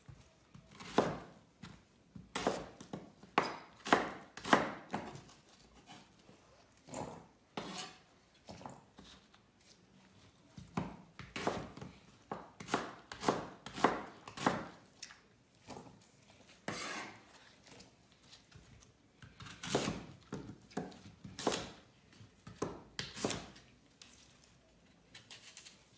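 Kitchen knife cutting an onion and then an apple on a wooden cutting board: runs of sharp knocks of the blade on the board, coming in clusters with short pauses between.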